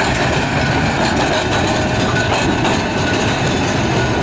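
Blackpool Balloon double-deck electric tram passing close by, its wheels running on the street-track rails with a steady rumble and clatter.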